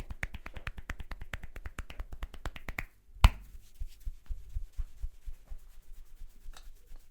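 Barber's hands working over a head in a fast run of sharp taps and snaps, about seven a second, during a percussive head massage. A short pause follows, then one loud crack. Slower, softer, irregular taps come after it.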